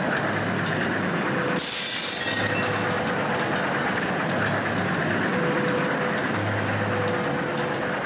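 Passenger train carriage running at speed: a steady rumble and rattle of the wheels on the rails, with a sudden brief hiss about one and a half seconds in.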